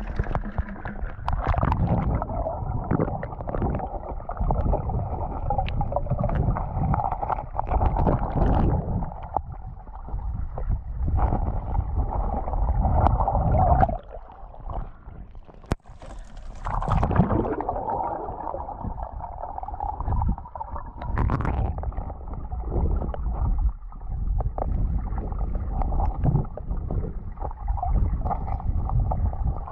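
Stream water sloshing and gurgling, muffled and rumbling as the camera goes in and out of the water. It dips about 14 seconds in, then comes a brief brighter splash about 17 seconds in.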